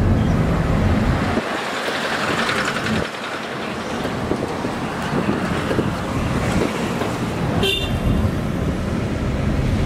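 A car's engine and tyres rumbling steadily, heard from inside the cabin while driving. A short, high-pitched toot sounds a little under eight seconds in.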